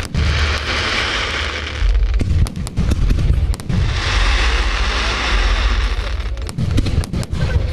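Aerial fireworks bursting overhead in quick succession: repeated sharp bangs over a heavy low rumble. Twice, a dense crackling hiss from the glittering stars swells for about two seconds, first at the start and again about four seconds in.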